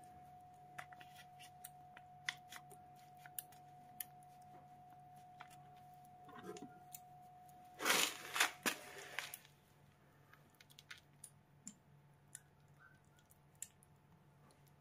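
Kitten eating soft food off a cardboard flap: a run of small, wet clicks of licking and chewing. About eight seconds in comes a brief, louder rustling crackle.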